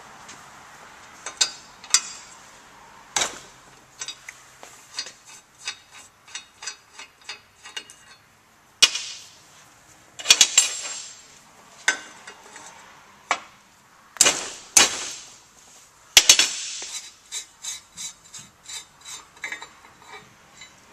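Wrench clicking and clanking on the brass temperature senders as they are unscrewed from a Toyota 22RE aluminium intake manifold. There are runs of light clicks about two a second, with several louder metal clanks among them.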